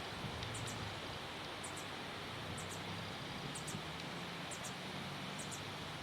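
A small bird repeating a very high, short double chirp about once a second, over a steady background hiss and a faint low hum.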